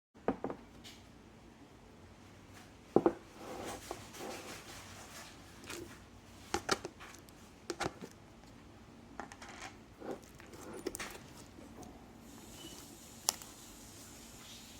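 Clay slime mixed with water beads being squished and pressed by hand: scattered sharp pops and crackles at irregular intervals, the loudest a quick pair about three seconds in.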